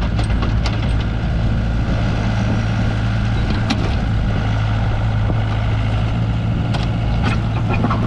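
Hyundai R60-7 midi excavator's diesel engine running steadily at constant speed, with a few short sharp clicks or knocks over it.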